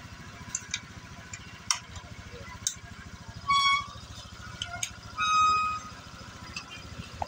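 Two short horn beeps, the first about three and a half seconds in and the second around five seconds, over a steady low hum and scattered light clicks.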